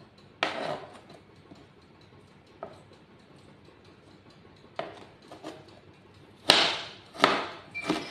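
A kitchen knife cutting on a plastic cutting board: a few scattered strokes, then three louder chops in quick succession near the end.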